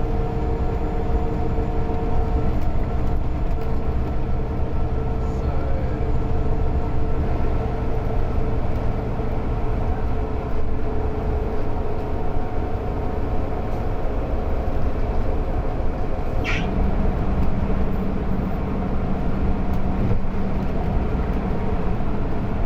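Mercedes-Benz OC500LE bus's rear engine and ZF automatic gearbox running, a steady drone with humming tones that shift. About two-thirds of the way through, a brief high squeal falls in pitch, and a new low hum sets in right after it.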